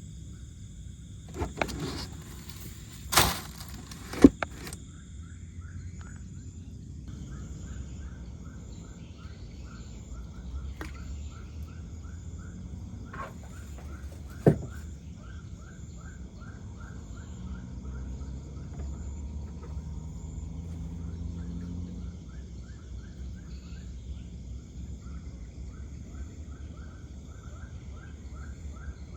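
Night insects calling: a steady high-pitched cricket trill with a rapidly repeated chirping call over it. A few sharp knocks come early on and one more about halfway through.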